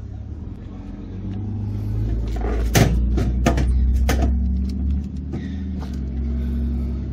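A steady low mechanical hum that swells about two seconds in, with a few sharp clicks over it.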